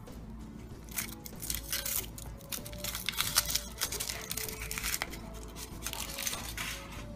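Thin foil wrapper of a Kinder Surprise chocolate egg being peeled off and crumpled by hand: a run of irregular crinkling and tearing rustles, starting about a second in and loudest around the middle.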